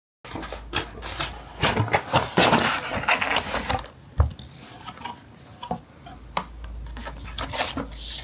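Stiff cardboard game box being opened by hand: a rubbing, scraping slide of the lid and card in the first few seconds, then scattered light taps and clicks as the card and inner tray are handled.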